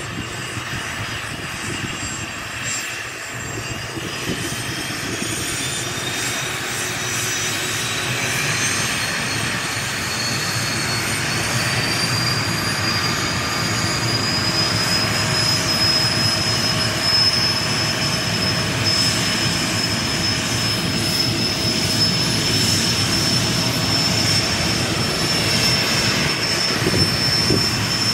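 Cessna Citation I's twin Pratt & Whitney Canada JT15D turbofans running on the ground: a high turbine whine over a low rumble. The whine climbs in pitch over several seconds and then holds steady, while the engine noise grows slowly louder.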